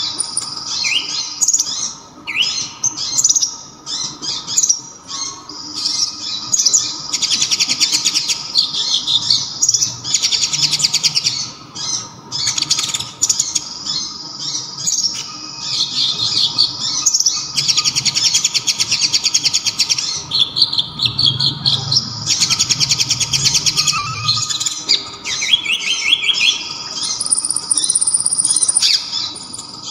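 Konin (kolibri ninja) sunbird singing a loud, sharp, clear song in repeated bouts of very fast high trills and quick notes, broken by short pauses. The song is laced with kapas tembak mimicry.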